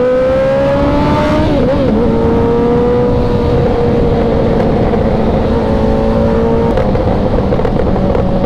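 Superbike engine pulling away, its pitch rising as it accelerates, then dipping briefly about a second and a half in and holding a steady pitch. A second, lower engine runs alongside and fades out near the end.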